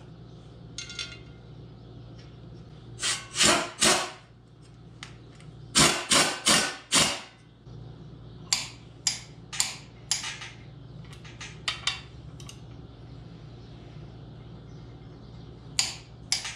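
Sharp metallic clicks and clinks of a long-handled wrench on the flex plate bolts of an LS V8, as the bolts are tightened in stages. The clicks come in clusters: two a few seconds in, four close together around the middle, several lighter ones after, and one near the end.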